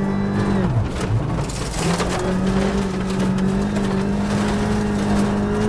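Ford Fiesta R5's turbocharged 1.6-litre four-cylinder rally engine heard from inside the cabin at high revs. Its pitch drops sharply about half a second in as the car slows, then climbs back and holds steady. Scattered sharp clicks of gravel hit the car.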